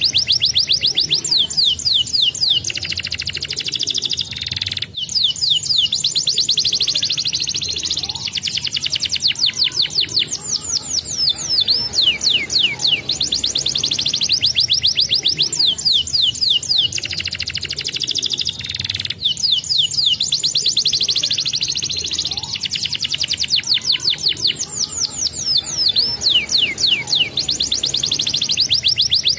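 Domestic canary singing a long, unbroken song of rolls: fast series of rapid, high repeated notes whose speed changes from phrase to phrase, mixed with quick falling sweeps.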